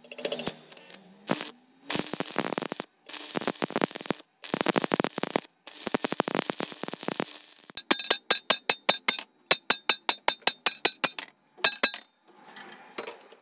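Stick-welding arc crackling in several runs with short breaks as weld is laid onto a steel crowbar. About eight seconds in, a hammer striking steel on an anvil in quick ringing blows, about four a second, for a few seconds.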